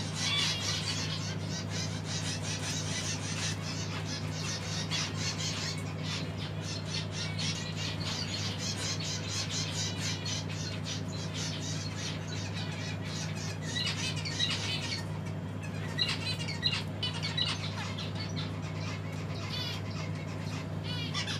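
Caged pet birds chattering and squawking in quick, dense calls, a few louder calls standing out past the middle, over a steady low hum.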